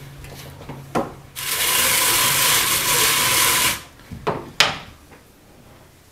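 Wool being carded on an older Patrick Green hand-crank drum carder: a steady scratchy rasp of fibre on the wire carding cloth for about two seconds that stops abruptly, followed by two sharp knocks.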